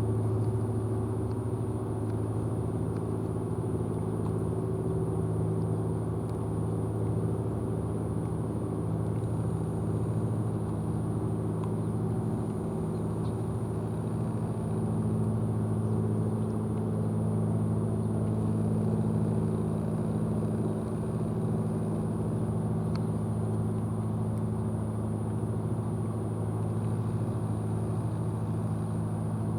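Steady low motor hum with a thin high whine above it, unchanging throughout.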